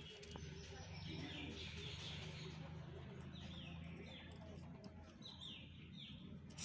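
Birds chirping faintly in the background: short downward chirps in runs of two or three, over a low steady hum.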